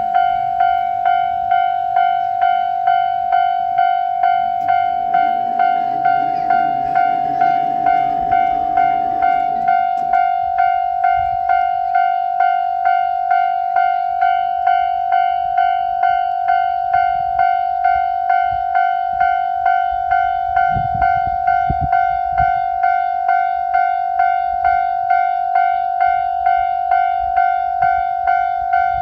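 Japanese railroad crossing's electronic warning bell ringing "kan-kan", a steady pitched tone struck over and over at an even, rapid beat. A lower rumbling noise sits underneath for a few seconds about five seconds in, and low thuds come briefly about twenty seconds in.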